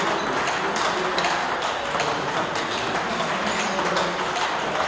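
Table tennis ball clicking against bats and the table, irregular sharp clicks several times a second, over steady room noise.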